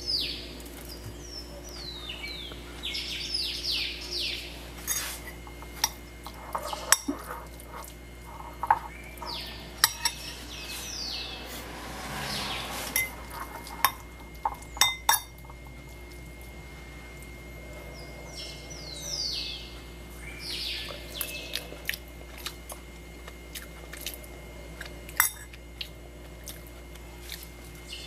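A metal fork clinking and scraping in a ceramic bowl as canned tuna is mashed, with several sharp clinks scattered through and a longer scrape near the middle. Birds chirp in runs of quick falling notes at the start and again in the second half.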